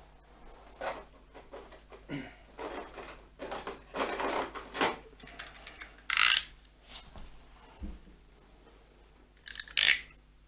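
Hand tools being handled: scattered clicks, rattles and scrapes, with two louder short rasping sounds about six seconds in and just before the end.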